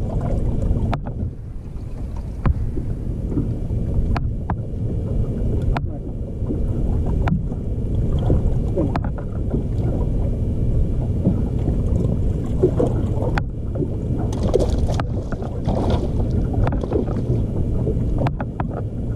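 Steady low rumble of wind buffeting the camera microphone on an open bass boat, with a few sharp clicks and knocks every few seconds.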